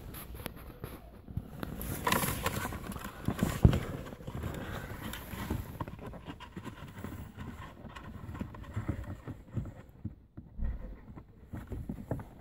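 Hands working at a car's cabin air filter housing behind the fuse panel: irregular scraping, rustling and plastic knocks. There is a louder rustling burst about two seconds in and a sharp knock a second or so later.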